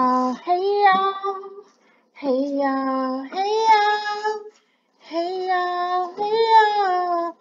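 A voice singing unaccompanied, in three short phrases with brief pauses between.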